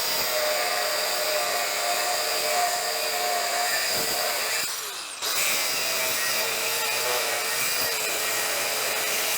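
A power tool cutting through the steel pedal levers, running steadily with a brief pause about five seconds in before cutting on.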